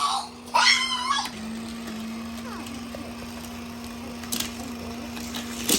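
Small battery motor of a Hot Wheels Sky Crash Tower humming steadily. Its pitch shifts slightly about a second in. A child's short high squeal comes near the start, and a few light plastic clicks and a sharp knock come near the end.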